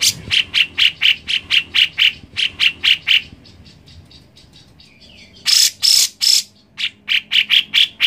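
Grey-cheeked bulbul (cucak jenggot) calling. It gives a fast run of loud, sharp notes, about four a second, then pauses for about two seconds. Three longer harsh notes follow, then another quick run near the end.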